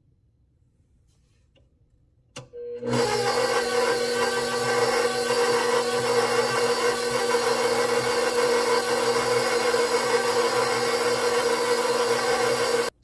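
KitchenAid stand mixer switched on with a click about two seconds in, its motor spinning up and then running at a steady hum as the flat beater mixes peanut butter into eggs; it stops abruptly just before the end.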